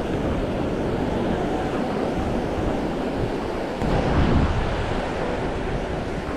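Ocean surf washing onto a beach, a steady rush of waves with wind on the microphone; a louder, deeper rush swells up about four seconds in.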